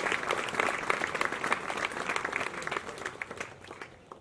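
An audience applauding, many hands clapping, dying away near the end.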